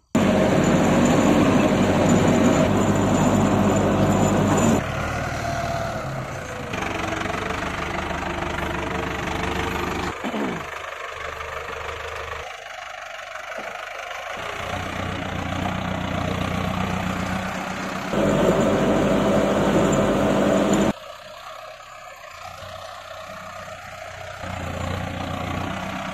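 A tractor engine running steadily. Its loudness and tone jump abruptly several times.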